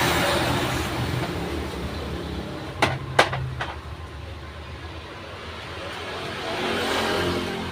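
Road traffic passing by, a broad rushing noise that fades and swells again near the end, with two sharp knocks about three seconds in.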